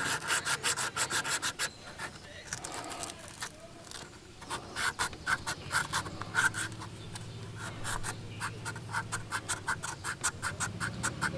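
Emery cloth being rubbed briskly back and forth over a steel door hinge pin to clean off corrosion, in quick even strokes of about four or five a second, pausing briefly after the first couple of seconds before starting again.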